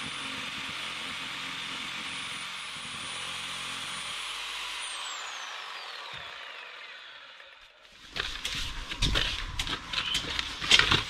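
Electric power tool running steadily, then switched off about five seconds in, its whine falling in pitch as it spins down. From about eight seconds, loud irregular knocks and clatter.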